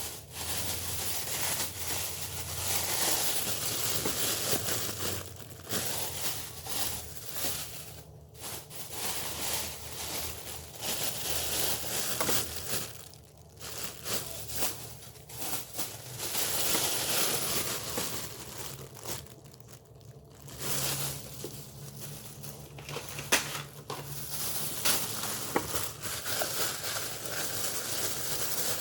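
Plastic packaging crinkling and rustling as it is handled, with scattered clicks and one sharper knock about two-thirds of the way through.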